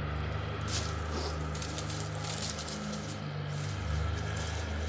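Rustling and crackling of plastic bird netting being handled and cut, starting about a second in, over a steady low hum.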